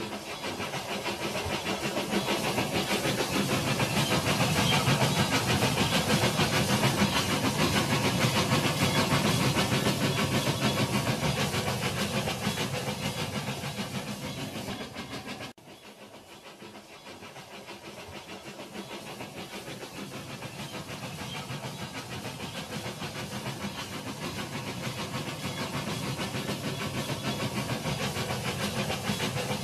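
Battery-powered toy steam-locomotive train running on plastic track laid through shallow water: a steady hissing, rattling run that swells and fades. It breaks off suddenly about halfway through, then builds again.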